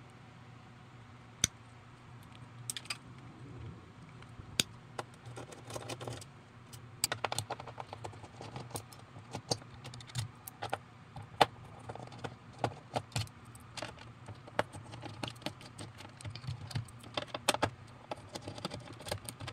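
Irregular light clicks and taps of pliers, a screwdriver and small metal parts as an old power transformer is disconnected and unscrewed from its metal mounting plate.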